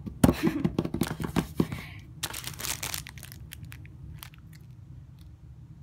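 Rapid hand taps as a drum roll for about a second and a half, then the crinkle of a squishy's clear plastic packaging being handled, tailing off into faint rustles.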